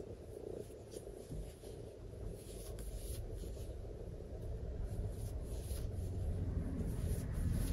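Metal crochet hook and yarn rubbing as stitches are worked: soft, irregular scratchy rustles, with low handling rumble growing louder toward the end.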